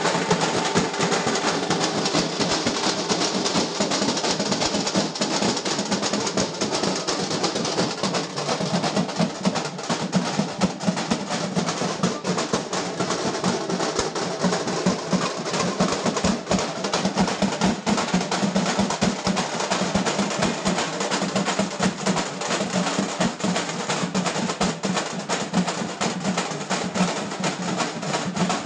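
Fast, dense drumming with continuous rolls and sharp snare-like strokes, kept up without a break.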